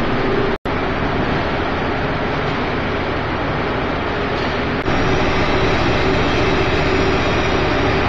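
YK circular vibrating screen running empty, its belt-driven exciter shaking the perforated deck on its coil springs: a loud, steady mechanical noise with a steady hum tone through it. The sound drops out for a moment about half a second in.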